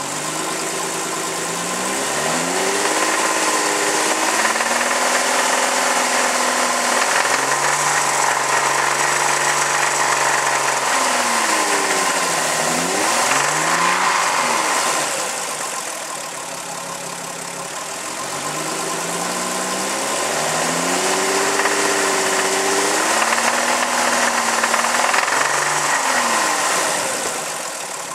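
2001 Volkswagen Jetta VR6 engine running, its pitch rising and falling several times as the revs go up and down, with the knocking that the owner wants diagnosed.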